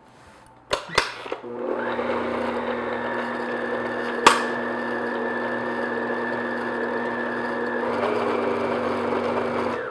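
Electric stand mixer switched on with a couple of clicks, its motor then running with a steady whine on low speed as the flat beater mixes flour into cake batter. There is a sharp click about four seconds in and a slight change in tone near eight seconds, and the motor stops just before the end.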